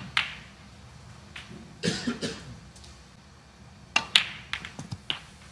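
Sharp clicks of a snooker cue striking the cue ball and of balls colliding, the loudest about four seconds in and followed by a few lighter clicks, against a quiet hall.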